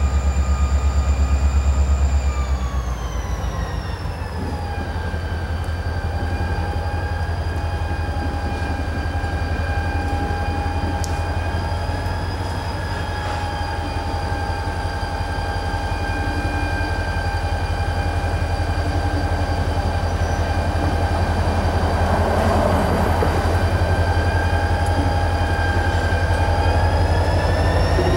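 EMD GP40-2 diesel-electric locomotive approaching with its turbocharged 16-cylinder engine running: a deep pulsing rumble under a steady high whine. The whine slides down in pitch a few seconds in, holds, then climbs again near the end.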